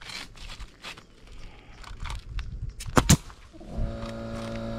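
Pneumatic nail gun firing two nails in quick succession about three seconds in, after some soft handling noise. Shortly after, an air compressor motor kicks on and runs with a steady hum.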